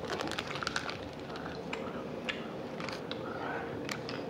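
A snack being chewed close to the microphone: scattered small clicks and crackles of eating.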